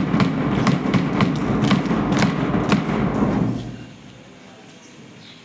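A close run of thumps and taps over a low rumble, the handling noise of a microphone being moved or passed on, lasting about three and a half seconds before it goes quiet.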